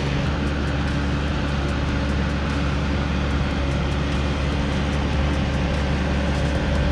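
Bulldozer's diesel engine running steadily under load, a constant deep drone with no change in pitch.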